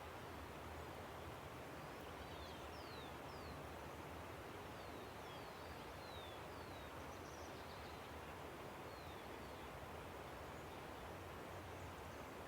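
Steady rush of a river, with a bird giving a series of short, high, downward-slurred whistles from about two seconds in until near ten seconds.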